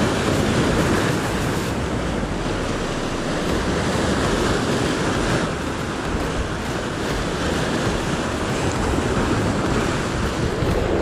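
Strong wind rushing over the microphone above a rough, choppy sea, with waves breaking and washing close by in a steady roar of noise.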